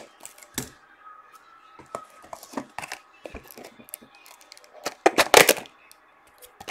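A sealed trading-card box being handled and torn open by hand: crinkling and scraping of its plastic wrapping and cardboard in short clicks, with a louder stretch of tearing about five seconds in.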